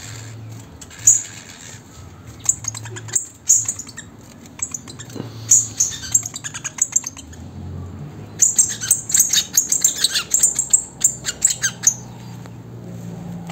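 Young caged picahueso (golden-billed saltators) calling and singing in short, sharp chirps and call notes, scattered at first and coming thick and fast from about eight seconds in.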